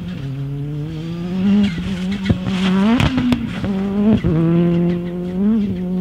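600 hp rallycross car's turbocharged four-cylinder engine revving hard at full throttle, pitch climbing and then dropping and rising again at several gearshifts. Sharp cracks from the exhaust come around the shifts in the middle, and the engine is held at high revs near the end.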